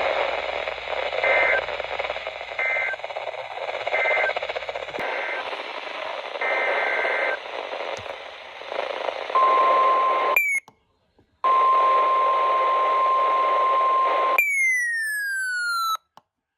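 NOAA Weather Radio alert over a static-laden signal: short two-pitch data bursts of the SAME digital header repeat about every second and a half. They are followed by the steady single-pitch 1050 Hz warning alarm tone that opens a severe thunderstorm warning. The tone is cut twice by brief dropouts, and a falling electronic sweep comes near the end.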